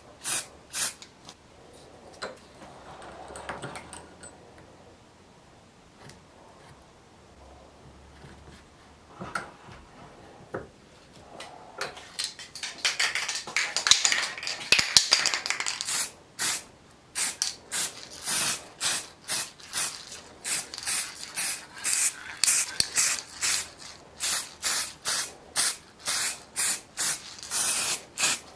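Aerosol spray hissing, first in a longer pass, then in a rapid run of short, even bursts about one to two a second.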